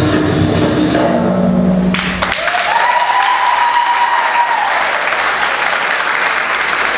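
Percussive dance music ends about two seconds in and the audience breaks into applause, with one long rising call over the clapping.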